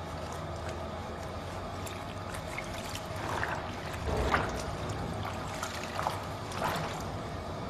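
Running water, a steady trickle with a few louder splashes in the middle and near the end.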